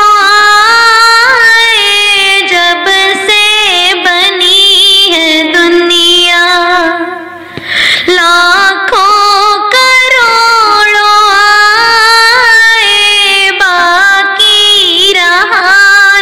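A female voice singing a slow melodic line, with a brief break about halfway through.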